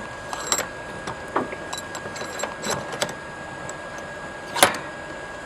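A steady mechanical hum with a thin steady whine, under scattered light metallic clinks and one sharp metal clank about four and a half seconds in, from blacksmithing tools being handled around the fire.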